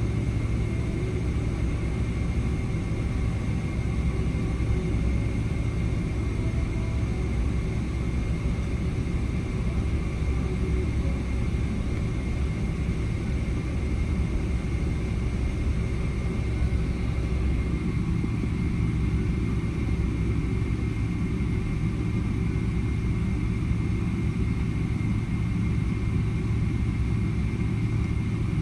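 Steady cabin noise of a Boeing 777-300ER airliner in flight: an even low rumble of engines and airflow, with a faint thin high tone running through it.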